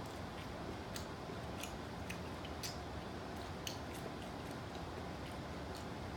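A person chewing crunchy taco shells, with irregular crisp crunches about once or twice a second.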